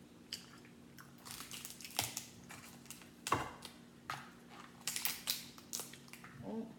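Crab leg shells cracked and snapped apart by hand: a series of sharp cracks and crunching, the loudest about three seconds in.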